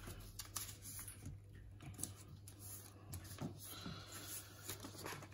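Faint rustling and light crinkles of a sheet of A4 paper being folded and its crease pressed flat by hand on a tabletop.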